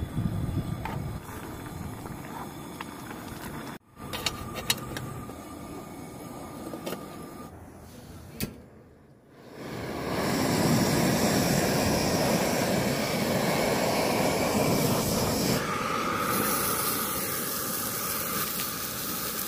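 Water sloshing as rice is stirred with a wooden spoon in an aluminium mess tin. From about halfway, a portable gas burner runs with a steady hiss under a griddle pan. Near the end, raw pork starts to sizzle on the hot griddle, adding a high hiss.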